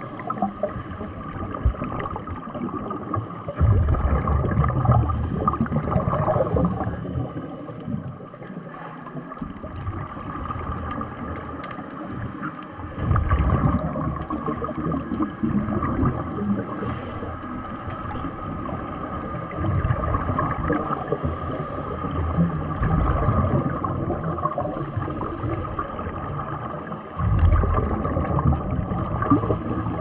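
Scuba regulator exhaust bubbles heard underwater, rushing up in surges every few seconds as divers breathe out, over a steady wash of water noise.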